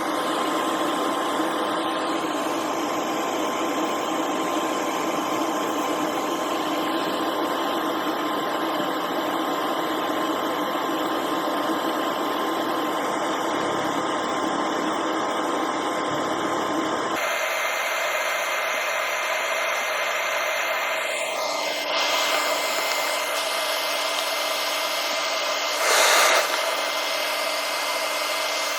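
Laser back-glass removal machine running: a steady fan-like whir with a constant high whine. The tone of the machine shifts about two-thirds of the way through, and a short louder hiss comes near the end.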